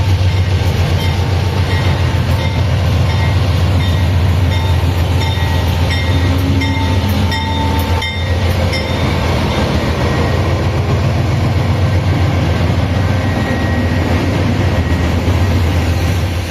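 Empty freight train rolling by with a loud, steady low rumble, with short high ringing tones coming and going through the first half.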